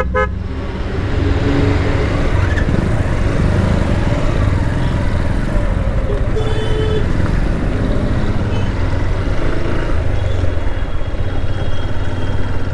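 Honda Hornet 160R's single-cylinder engine running, first at a standstill and then pulling away, with a steady low rumble and road noise. A short horn beep sounds about six seconds in.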